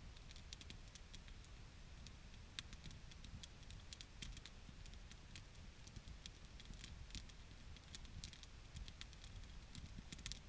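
Small wood campfire crackling faintly, with irregular sharp pops and snaps over a low steady rumble.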